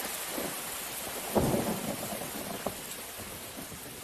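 Steady rain with one low rumble of thunder about a second and a half in, slowly fading.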